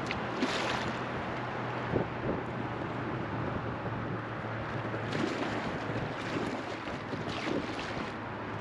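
River water running and lapping against a floating raft, with brief splashes near the start, about five seconds in and again about seven and a half seconds in, over a steady rush of wind on the microphone.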